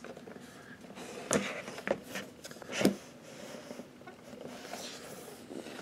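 A large cardboard box being handled and turned by hand: a few sharp knocks and taps in the first three seconds, then softer scraping and rustling of the cardboard.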